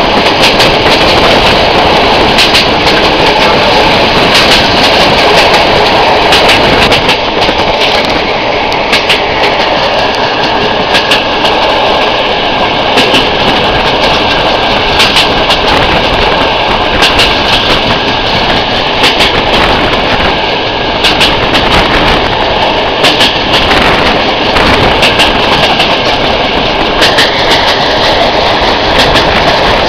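Passenger train hauled by an SM48 diesel locomotive, heard from a carriage window while running at speed: a steady loud rumble with the wheels clicking over rail joints. A faint steady whine joins about ten seconds in.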